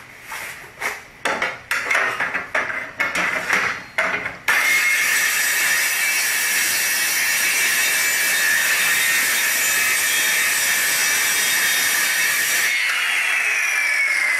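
A run of irregular knocks, then a Skilsaw portable circular saw with a non-ferrous metal blade cutting through a metal bar: a loud, steady cut with a high whine that starts abruptly about four seconds in. Near the end the cutting stops and a falling whine follows, the blade spinning down.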